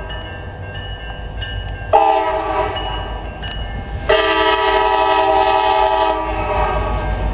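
Alaska Railroad EMD SD70MAC diesel locomotive sounding its multi-note air horn: a short blast about two seconds in, then a louder long blast about four seconds in, the locomotive's engine rumbling low beneath.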